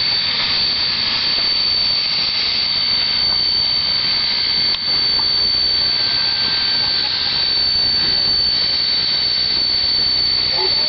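NZR Jb-class 4-8-2 steam locomotive passing close by, with a loud, steady hiss and roar of escaping steam and a high, steady whistling tone over it.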